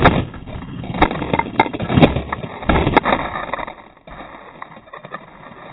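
An FPV drone crashing into the ground, heard from its own onboard camera: a series of hard knocks and cracks as it tumbles, then it comes to rest with faint rustling in dry grass.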